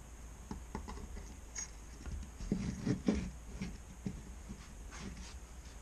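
Light wooden knocks and taps as a small wooden toy sleigh is handled and set down on a wooden workbench, with a cluster of louder knocks about halfway through, over a low steady hum.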